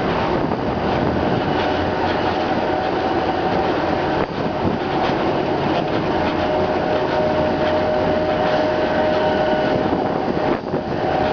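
Continuous rumbling rattle of a bicycle rolling over concrete pavement, its handlebar-mounted camera picking up the shaking. A steady machine whine holds through the middle few seconds.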